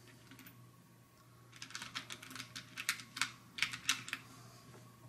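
Metal screwdriver bits clicking and clattering against one another and a plastic compartment organizer as fingers rummage through them: a quick irregular run of small clicks from about a second and a half in until about four seconds in.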